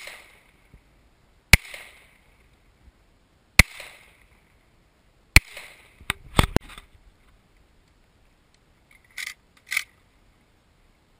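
Semi-automatic pistol fired slowly, four shots about two seconds apart, each with a short echo. A quick run of clicks follows about six seconds in.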